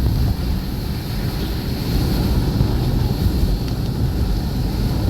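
Wind buffeting the microphone over the steady rumble of a vehicle driving.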